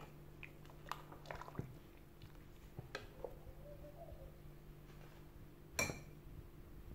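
Quiet kitchen handling sounds over a steady low hum: a few soft clicks and taps in the first three seconds, and one sharper metallic clink that rings briefly, near the end.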